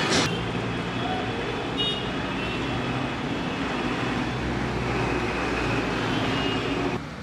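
City street traffic noise: vehicle engines running steadily as traffic passes, with a brief high tone about two seconds in. The sound drops off suddenly near the end.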